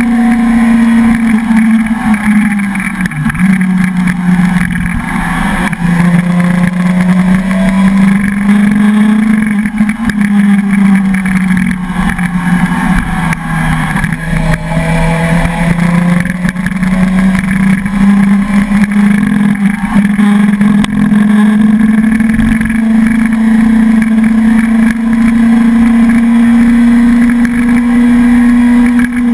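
Suzuki sport motorcycle engine running under load, heard from the rider's seat. The engine note sags gradually through the first half and climbs back up and holds steady in the second half.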